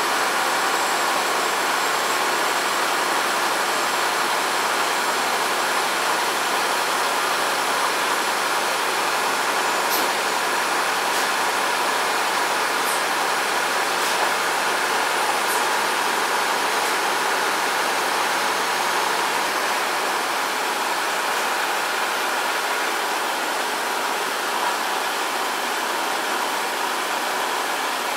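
Passenger train running steadily, an even noise of wheels on the rails heard from inside the carriage, with a few faint ticks around the middle.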